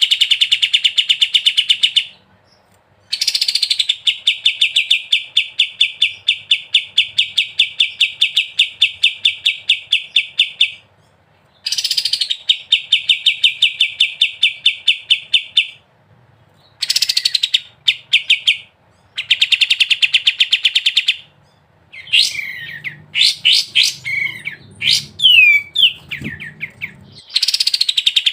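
Kapas tembak bird singing in the rapid 'ngebren' style: long rattling trills of quickly repeated notes, each several seconds long with short breaks between them. Near the end come a few seconds of varied sliding whistled chirps before the trilling resumes.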